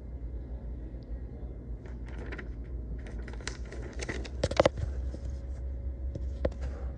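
Low steady room hum with scattered light clicks and rattles, and a few sharper clicks about halfway through.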